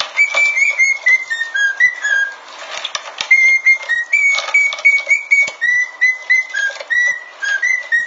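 Cockatiel whistling a tune, a run of short, clear notes that step up and down and fall away at the end of each phrase, over the clicking of a dog crunching kibble from a bowl.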